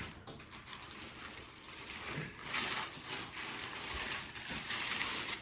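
Cardboard and packaging rustling and sliding as a large amplifier is worked out of its box, in a couple of long scraping swells.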